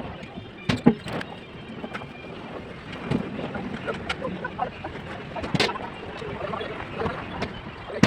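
Irregular knocks and taps of column shuttering work, about six sharp strikes a second or more apart, over a steady background hiss.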